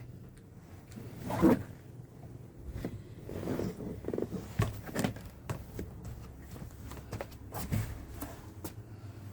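Irregular rustling, scuffing and light knocks of a foam mattress being handled and fitted onto a folding camping cot, with the loudest bump about a second and a half in.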